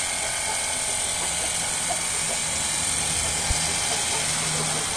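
Cordless battery-powered high-pressure water gun running, its small pump motor humming under the steady hiss of the water jet. One sharp click about three and a half seconds in.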